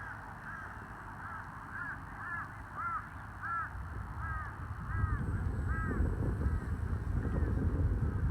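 A bird calling over and over, short arched caw-like calls about two a second. About five seconds in, a low rumbling noise grows louder beneath the calls.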